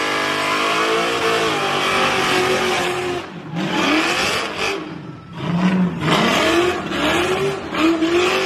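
Pontiac Trans Am engine revving hard through a burnout and donuts, tyres spinning and squealing. The engine pitch rises and falls over and over, with brief lifts off the throttle about three and five seconds in.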